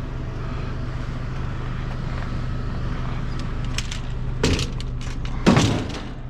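Vehicle engine idling with a steady low hum, with two short handling noises about four and a half and five and a half seconds in.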